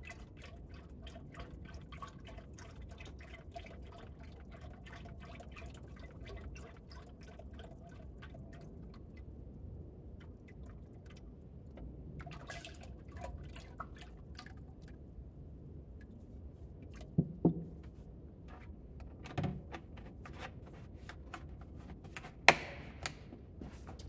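Coolant being poured into the car's cooling system, a rapid patter of small splashes and drips as it fills. In the second half come a few sharp knocks, the loudest near the end.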